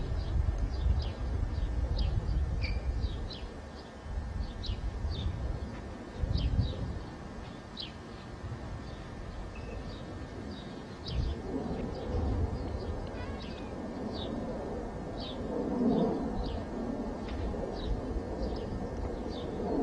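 Birds chirping: short high chirps repeating about once or twice a second, over a low, uneven rumble on the camcorder microphone.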